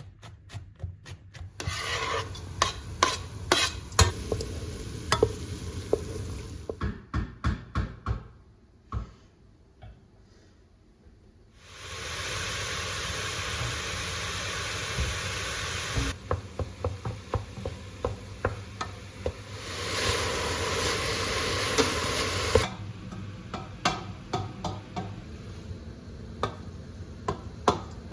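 Cooking in a pan: a utensil stirring and scraping with repeated clicks and knocks, and stretches of sizzling that start and stop abruptly.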